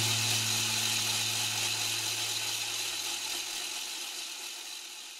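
The band's last chord ringing out. A low bass note holds until about four seconds in, over a high hissing ring that dies away steadily.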